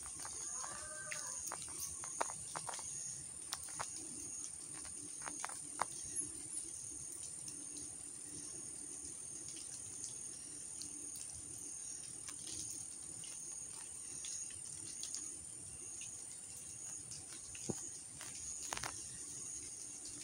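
Outdoor insect chorus: a steady high, even drone with a fainter chirp pulsing about one and a half times a second. Scattered light clicks and ticks sound through it, and a brief call comes about a second in.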